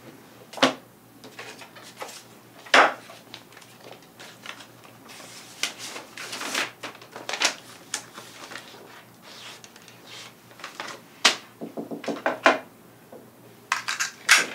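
Manila envelopes and papers handled on a wooden table: sharp knocks about half a second and nearly three seconds in, paper rustling and sliding in the middle, and a run of small clicks and taps near the end.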